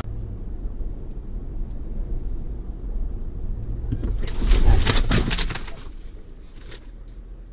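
Car driving, heard from inside the cabin as a steady low engine and road rumble. About four seconds in comes a louder burst of rushing noise with sharp clicks that lasts about a second and a half.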